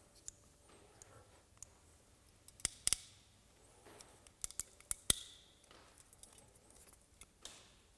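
Hand crimping tool clicking as it crimps an insulated ring terminal onto a wire: a string of sharp metal clicks, the loudest about three seconds and five seconds in.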